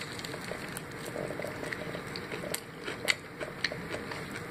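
A mouthful of crispy Popeyes fried chicken being bitten and chewed, with irregular small clicks and crackles from the breading.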